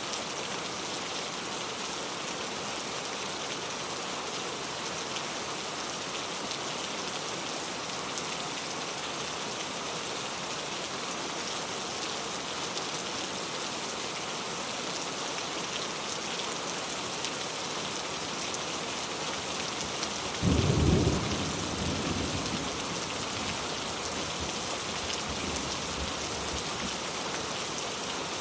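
Steady rain falling, an even hiss. About twenty seconds in, a sudden clap of thunder that rumbles away over the next few seconds.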